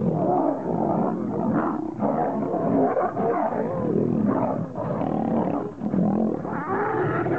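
Several wild animals calling over one another without a break, their pitch wavering up and down.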